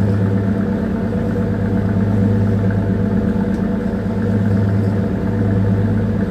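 Small bunker tanker's diesel engine running steadily underway, a constant low, even hum with no change in speed.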